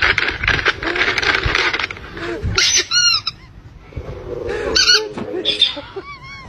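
Plastic treat bag crinkling for about two seconds, then a squeaky rubber toy squeezed in short high squeaks, a few times over the next few seconds.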